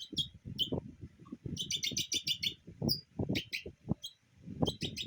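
Sun conure chirping in short, high chirps, with a quick run of chirps about two seconds in. Soft low taps sound throughout.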